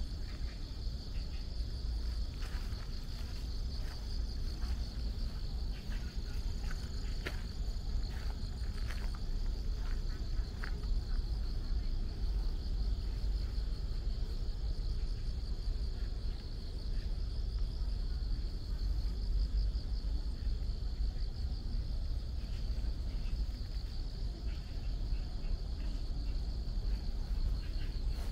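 Steady chorus of crickets trilling in the grass, a fast pulsing high-pitched buzz that holds throughout. A low rumble runs underneath, with a few scattered light clicks in the first half.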